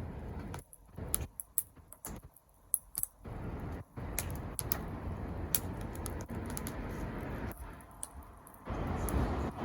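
Wood fire crackling, with sharp irregular pops over a low, uneven rushing noise.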